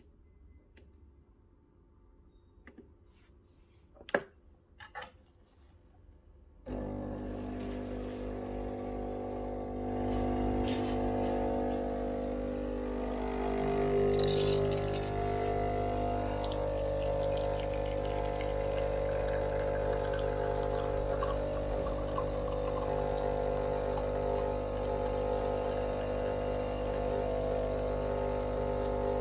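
A few clicks over near quiet, then the Breville Barista Pro's vibratory pump starts abruptly about seven seconds in. It settles into a steady buzzing hum and grows louder a few seconds later as it pushes water through the pressurized dual-wall basket to pull an espresso shot.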